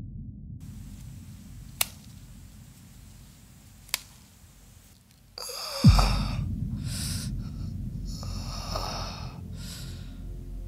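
Film sound design: a low rumbling drone with two sharp clicks, then, about six seconds in, a sudden deep boom that falls in pitch. Four short, rasping, breath-like bursts follow over a low hum.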